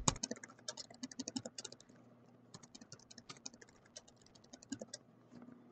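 Computer keyboard typing: fast runs of keystrokes, with a short pause about two seconds in.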